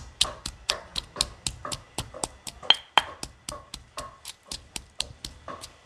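Pestle pounding red chilies in a stone mortar: a steady run of knocks, about four a second. Two harder strokes about midway give a short ringing clink.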